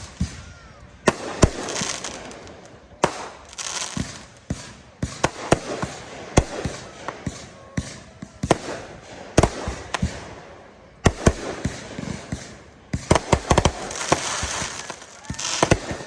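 Fireworks display of aerial shells and 500-gram cakes going off. An irregular, rapid string of sharp bangs, some close together in clusters, with crackling hiss between the bursts.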